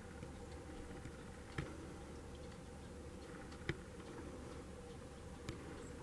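Faint steady background hiss with three light, sharp clicks spaced about two seconds apart.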